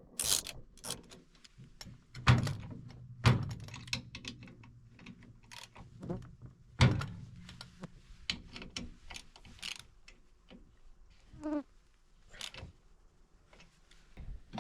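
Scattered clicks and knocks, with three heavier thunks about two, three and seven seconds in.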